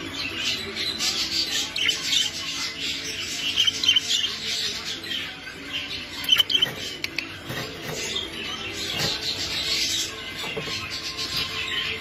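English budgerigars chattering: a continuous jumble of quick chirps and warbles, with a couple of louder calls in the middle.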